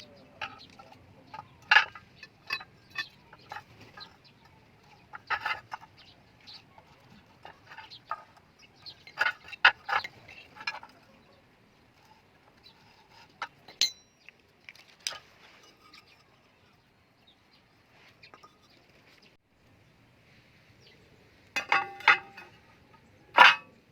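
Scattered metal clinks and knocks, as steel parts and tools are handled, with a louder ringing clank near the end.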